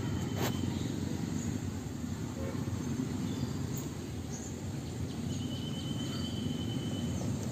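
Steady low outdoor rumble with a few faint high chirps, a sharp click about half a second in, and a thin high whistle held for about two seconds near the end.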